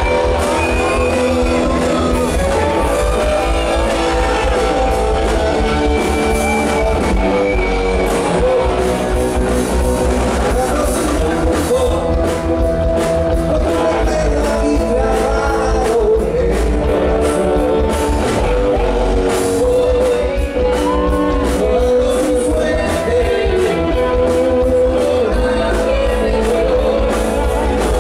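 Live rock band playing loudly: a man singing into a microphone over electric guitar and a heavy low end with a steady percussive beat.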